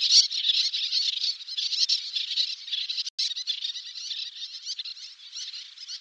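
A colony of terns calling: many shrill, overlapping calls, with a momentary break about three seconds in, growing fainter toward the end.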